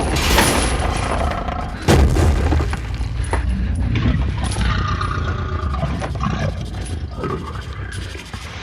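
The Smoke Monster's sound effect: a deep rumble with crashing and cracking, and a sudden loud bang about two seconds in.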